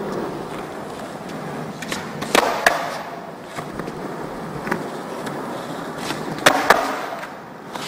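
Skateboard wheels rolling on a smooth concrete floor, broken twice by a pair of sharp clacks about four seconds apart: the board popping and landing tricks.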